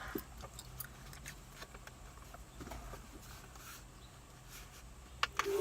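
Faint, scattered small clicks and ticks of handling over a low steady hum, with two sharper clicks near the end.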